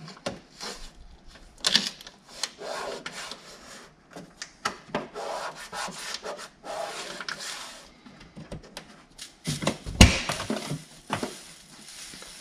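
Hands rubbing and shifting an aftermarket body-kit side skirt and masking tape against a car's rocker panel, an irregular series of scratchy rubs and rustles, with a sharp knock about ten seconds in.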